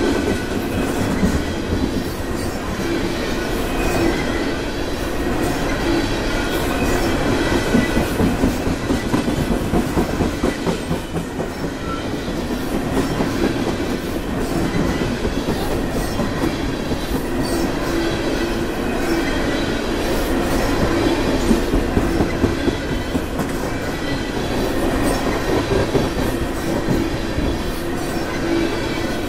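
Freight train of black ethanol tank cars rolling past at close range: a steady rumble of steel wheels on rail with rapid clickety-clack over the rail joints, and a faint thin high tone running through it.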